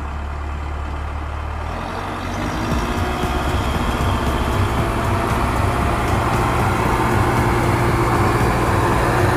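Small electric motor of a homemade mini water pump running with a steady hum. It grows louder about two seconds in, as the pump pushes a jet of water out of the toy tanker's pipe.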